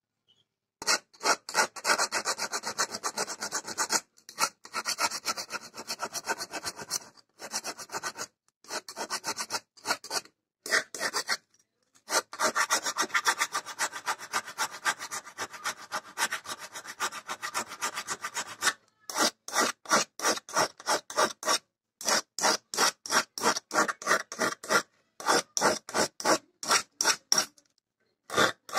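A small hand file stroking back and forth on the steel of an old auger bit. The strokes come in quick runs with short pauses. From about two-thirds of the way in they turn slower and separate, roughly two a second.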